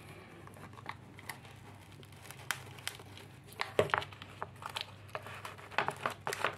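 Thin clear plastic of a Brother MFC ink absorber tray crinkling and crackling as fingers grip and tug at the wet sponge pads inside, in scattered sharp clicks, with a cluster about four seconds in and more near the end.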